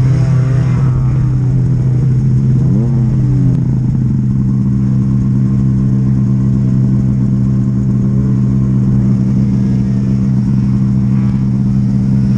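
Snowmobile engine running, its pitch rising and falling over the first few seconds, then holding steady.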